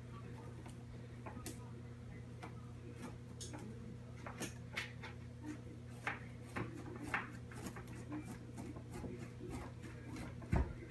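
Chef's knife being worked through the hard rind of a raw spaghetti squash: scattered creaks, scrapes and small clicks as the blade is levered down, with a louder low thump near the end.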